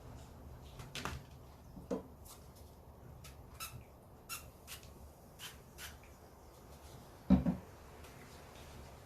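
Scattered light clicks and taps from objects being handled, with one louder knock about seven seconds in, over a low steady hum.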